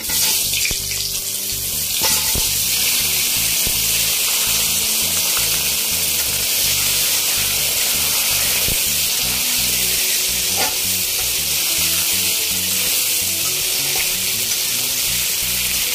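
Cut potato chunks sizzling as they fry in hot oil with cumin and bay leaf in a kadai. The sizzle grows stronger about two seconds in, and a spatula scrapes and knocks now and then as the potatoes are stirred.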